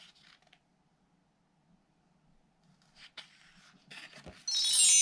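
A quick run of bright metallic chimes from high to low, like a bar chime being swept, starting about four and a half seconds in and ringing on. Faint rustling comes just before it.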